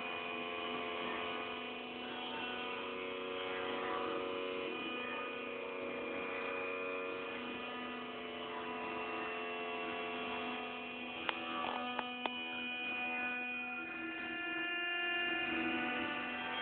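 Sustained electronic drone of several steady layered tones, its notes shifting a few times, with three short clicks about eleven to twelve seconds in.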